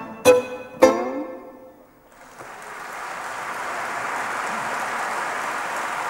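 Violin and guitar strike the last two accented chords of a tango, each ringing out briefly. After a short pause of about a second, an audience starts applauding and the applause swells to a steady level.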